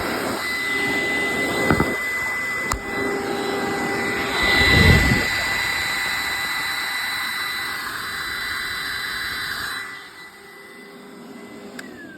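Hoover SteamVac Dual V carpet cleaner running, its suction motor giving a steady high whine with a brief louder low rumble about five seconds in. It is switched off about ten seconds in, and the motor winds down with a falling tone.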